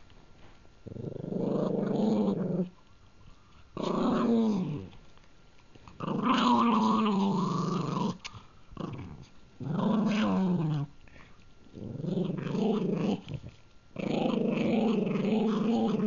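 Pug growling in six drawn-out growls, each a second or two long with short pauses between. The growls mean he is defending the treat he is eating.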